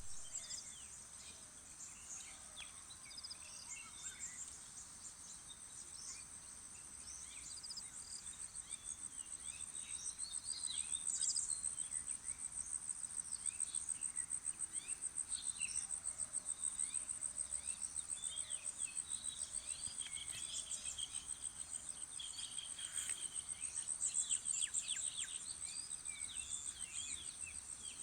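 Morning countryside chorus: insects keep up a steady, high, rapidly pulsing trill throughout, while many birds chirp and call over it.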